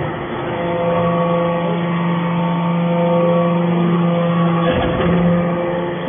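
Hydraulic metal-chip briquetting press running with a steady multi-tone hum from its hydraulic power unit, and a brief clatter near the end.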